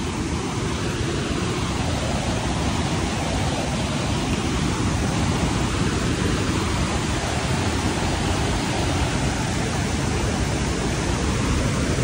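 Waterfall heard close up: a steady rush of falling water.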